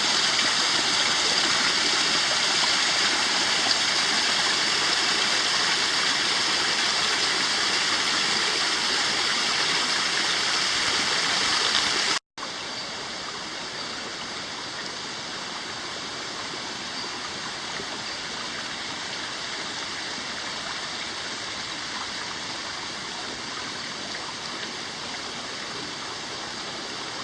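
Creek water flowing over rocks, a steady rush. It cuts out abruptly about twelve seconds in and comes back noticeably quieter.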